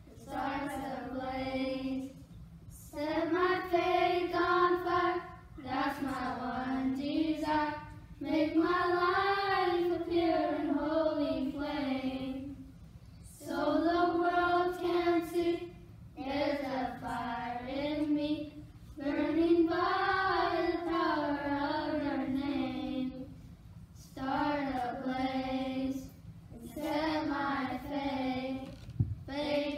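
A group of children singing a worship song together in unison, unaccompanied, in sung phrases of two to three seconds with short breaks between them.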